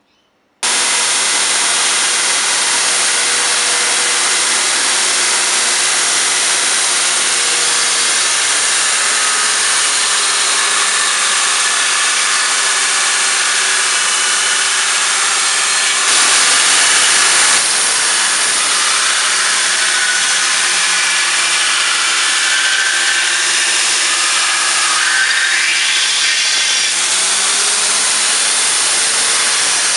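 Belt grinder running with steel pressed against the abrasive belt: a loud, steady grinding hiss that starts abruptly about half a second in and gets briefly louder around the middle.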